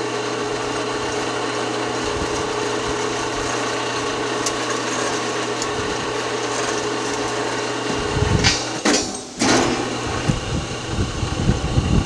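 Electric hoist motor humming steadily, then stopping about eight seconds in, followed by several loud clanks and knocks of steel chain and beam clamps.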